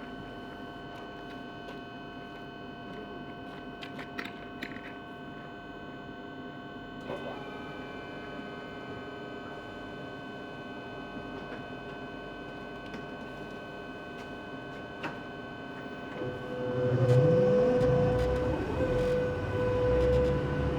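Commuter train standing at the platform with a steady electrical hum and a few small clicks, then pulling away: about three-quarters of the way through, the sound gets louder as a rising motor whine sets in.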